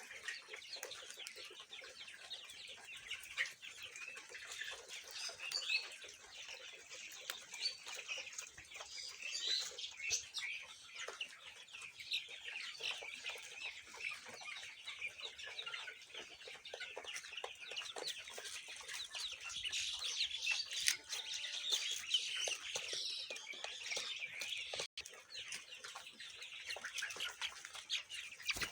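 A flock of a thousand month-old Colour Bird chickens peeping and clucking, many high calls overlapping without a break.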